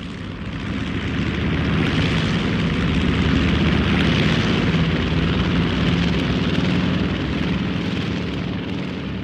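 Turboprop airplane flying past: a steady drone of engines and propellers that swells up, is loudest in the middle and dies away near the end.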